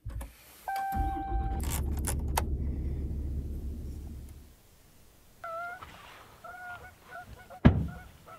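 A pickup truck's push-button start: a short electronic chime, then the engine catches and runs steadily for about three and a half seconds before fading out. Then a few honking bird calls, and a single sharp knock near the end.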